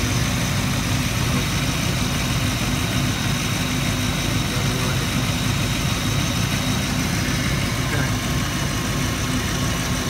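Land Rover Discovery II's 4.0 V8 petrol engine idling steadily, with a suspected vacuum leak.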